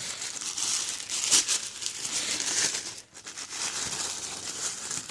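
Packing paper crinkling and rustling as it is handled and pulled apart to unwrap an item, with a short pause about three seconds in.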